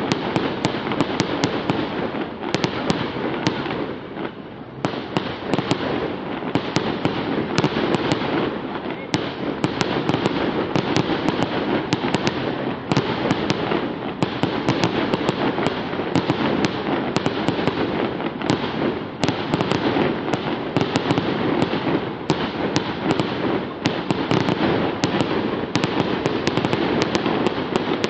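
Fireworks display going off in a rapid, continuous barrage of bangs and crackles, with a brief lull about four seconds in.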